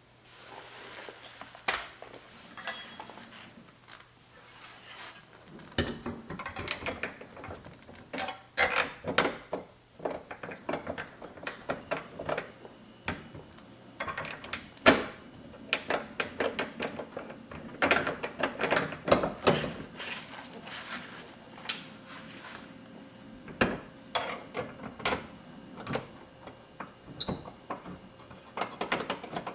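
Irregular metallic clicks, clanks and rattles of tools and bolts being worked on a Jeep door hinge while a folding hinge step is bolted on, busier from about six seconds in.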